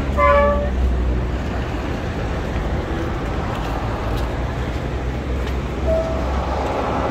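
Steady rumble of road traffic, with a short vehicle horn toot about a quarter of a second in.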